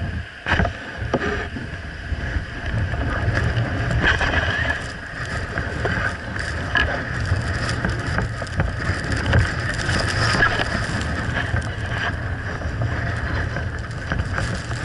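Snowboard sliding and scraping over icy, hard-packed snow, a continuous hiss with a few sharp knocks in the first second or so, while wind buffets the microphone with a steady low rumble.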